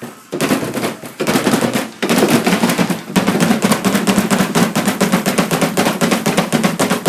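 Piano keys hammered in a fast, unbroken pounding of about ten strikes a second, with short breaks in the first few seconds: loud, tuneless playing that is called terrible.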